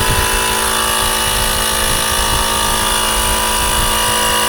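Electric air pump motor running steadily at a constant pitch, inflating a punctured bicycle inner tube to find where the air is leaking.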